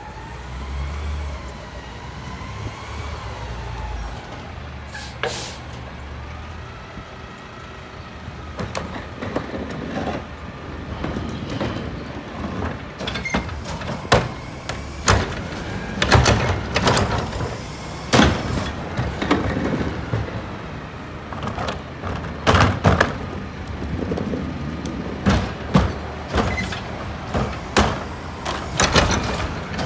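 Mack LEU garbage truck's engine running as it pulls up, with gliding mechanical whines and a short air-brake hiss about five seconds in. After that, repeated bangs and thuds as trash carts are tipped into and knocked against the McNeilus carry can on the truck's front forks.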